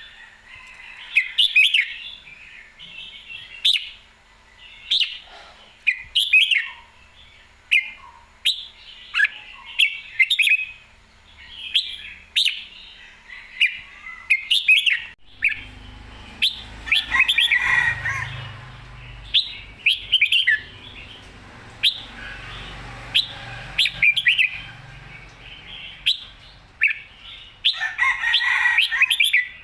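Red-whiskered bulbul singing: short, bright, warbling phrases repeated every second or two.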